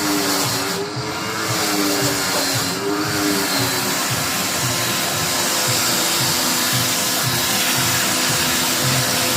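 Electric pressure washer running and spraying water onto refrigerator condenser coils, rinsing off the degreaser: a steady hiss of spray over a motor hum whose pitch wavers briefly in the first few seconds and then holds steady.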